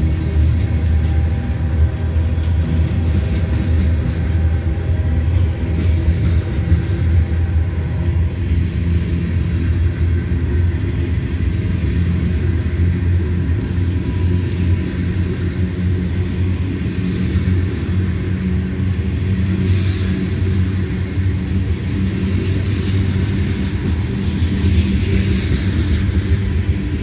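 Loaded covered hopper cars of a freight train rolling slowly past as the train gets under way: a steady low rumble of wheels on rail with a deep drone under it from the train's GE diesel locomotives pulling. One brief sharp sound about three-quarters of the way through.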